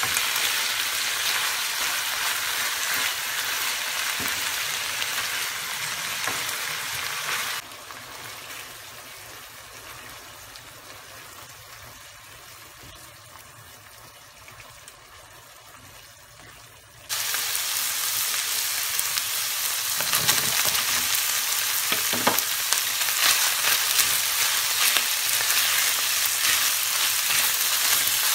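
Ground beef and cherry tomatoes sizzling in a frying pan while a spatula stirs them. The sizzle drops abruptly to a much softer level for about ten seconds in the middle, then comes back loud.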